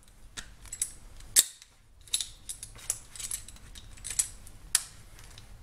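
Sharp metallic clicks and snaps, about a dozen at uneven intervals, as locking pliers grip and work at the thin steel cover of a ball bearing. Two are loudest: one about a second and a half in and one near the end.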